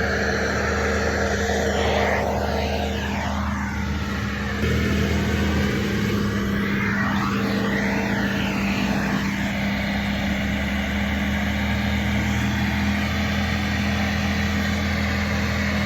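Skid steer running a bush hog rotary cutter: a steady machine drone with a strong hum, its higher tones sweeping up and down several times in the first half.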